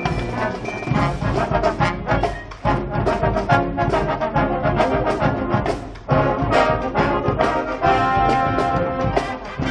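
High school wind band playing loudly, trombones and trumpets leading over a steady beat of drums.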